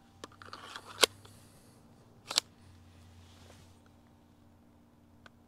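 Sharp plastic clicks and clacks of a 3D-printed Zinc Nerf pistol being reloaded and handled: a few light ticks, a sharp click about a second in as the magazine goes in, and a louder double clack about two and a half seconds in.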